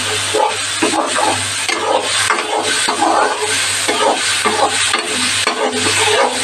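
Green onion and spice paste sizzling in hot oil in a metal karahi while a steel slotted spoon stirs and scrapes the pan in repeated strokes.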